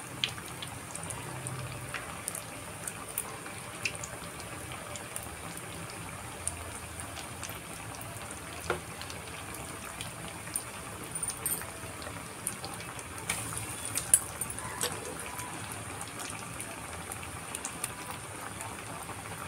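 Breadcrumb-coated bread slices deep-frying in hot oil in a kadai: steady sizzling and bubbling, with scattered crackles and a few sharper clicks, the loudest about fourteen seconds in.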